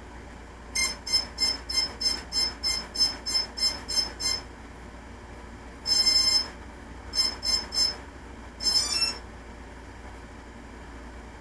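Electronic beeps from a Hobby King Nova quadcopter: about a dozen short high beeps at roughly three a second, one longer beep, three more short beeps, then a quick run of tones rising in pitch, as the craft goes through its arming sequence.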